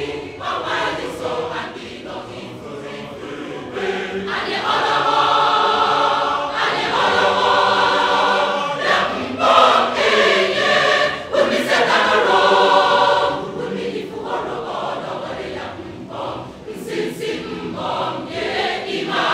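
A mass choir singing a choral piece in full harmony, many voices together. It swells louder from about four seconds in and eases off again after about thirteen seconds.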